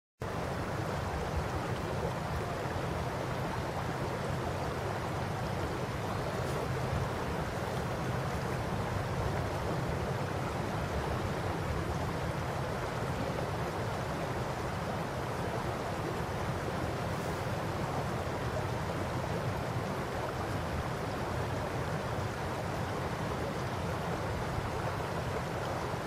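Shallow river babbling steadily as it flows over gravel bars and stones, an even rush of water with a low rumble underneath.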